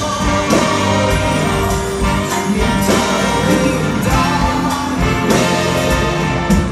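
Loud accompanying music with held notes and drum hits.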